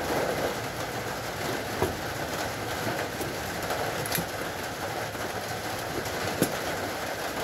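Steady rushing background noise with a few light clicks and knocks as a hurricane lantern is set down on a wooden bench.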